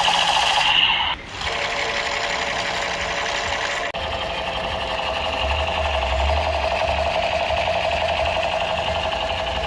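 Toy machine gun firing its electronic gunfire sound effect, a fast continuous rattle from a small speaker. It dips briefly about a second in and changes tone abruptly about four seconds in.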